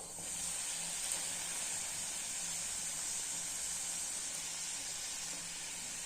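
Luchis (small puffed Bengali puris) deep-frying in hot vegetable oil in a karahi, giving a steady, even sizzle.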